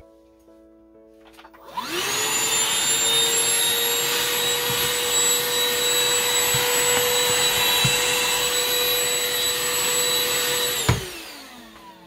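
UltraCyclone handheld vacuum switched on about two seconds in, its motor spinning up to a steady whine with a rush of air as it sucks up trimmed yarn clippings. It is switched off with a click near the end and winds down in pitch.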